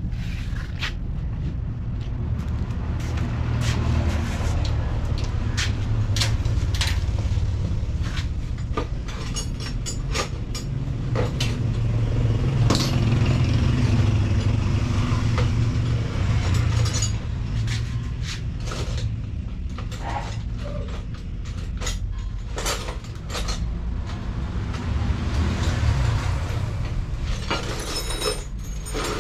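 Bajaj RE three-wheeler's single-cylinder engine idling steadily, with scattered sharp metallic clicks and knocks over it.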